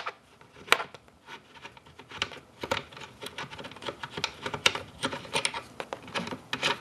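An Allen wrench turning an Allen screw out of an airsoft sniper rifle's buttstock: a run of small, irregular clicks and scrapes of metal on the rifle.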